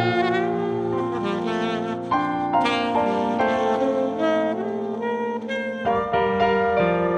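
Free jazz improvisation: a tenor saxophone plays wavering, moving lines over sustained chords from a Nord Stage keyboard's piano.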